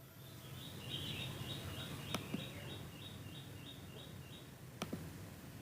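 A bird chirping in a fast, even series of short high notes that stops about three and a half seconds in, with a few sharp clicks.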